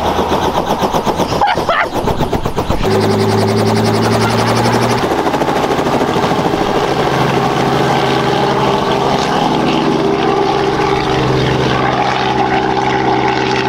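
Light helicopter's rotor and engine at takeoff: a close, rapid blade chop for the first few seconds, then a steady rotor drone as it climbs away overhead.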